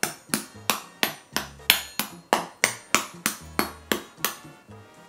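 A chef's knife tapping again and again on the hard, crackling-crisp skin (cuero) of a roast pork shoulder, about three sharp knocks a second. The hard knock is the sign of how crunchy the skin has roasted.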